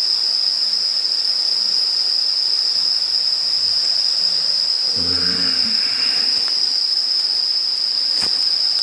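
Night insects, crickets or katydids, trilling in one continuous, even, high-pitched buzz.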